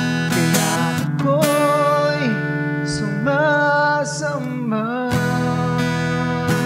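Acoustic guitar strummed in a slow worship song, with a man singing a wordless 'ooh' melody over it for most of the first five seconds; after that the guitar chords carry on with little voice.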